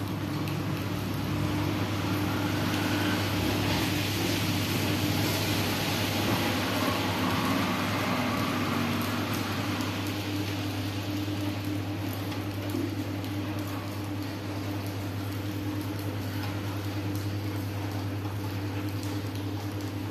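A steady low machine hum with an even hiss over it, swelling slightly in the first half.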